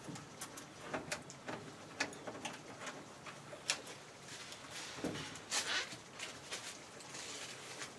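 Scattered clicks, knocks and short rasps of plastic straps being threaded and pulled tight to fasten a milk-crate nest box to a post, busiest a little past halfway.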